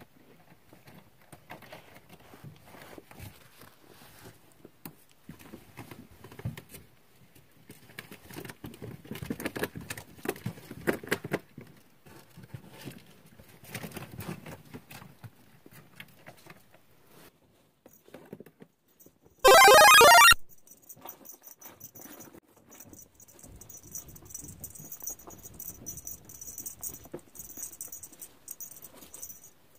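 Ferrets scampering and rustling over loose shredded fleece bedding, in irregular patters and rustles. A sudden, very loud sound of under a second cuts in about two-thirds of the way through.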